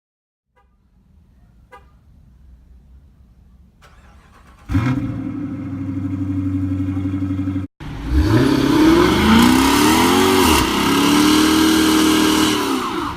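Dodge Charger R/T's 5.7-litre Hemi V8 starting with a sudden loud bark about five seconds in and running steadily. After a brief cut it is revved several times, pitch rising and falling.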